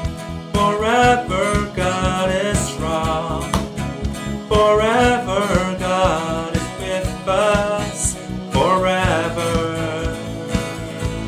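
A man sings a worship-song chorus over band accompaniment with a steady beat. The singing ends near the end, leaving a held chord.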